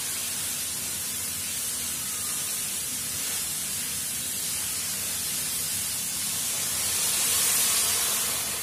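Steady hiss, louder about seven seconds in and then easing off.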